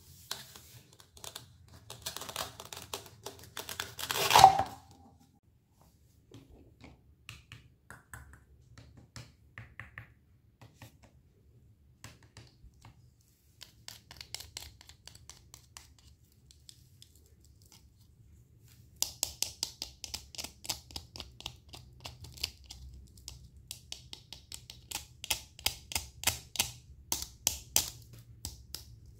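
Knife cutting through fresh fruit and vegetables: a crunchy tearing cut that builds to one loud crack about four seconds in, then scattered small clicks. Near the end comes a run of quick, sharp chopping strokes, several a second.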